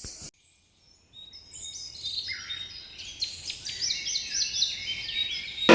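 Birds chirping, many short high calls overlapping, beginning about a second in after a brief silence.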